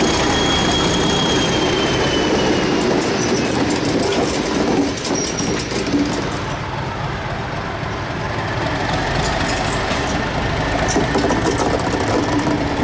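Di class diesel-electric locomotive running slowly along the track, its engine humming steadily, with a thin high wheel squeal that falls a little and fades in the first few seconds and clicks from the wheels on the rails. Near the end the engine hum comes up again as the locomotive passes close.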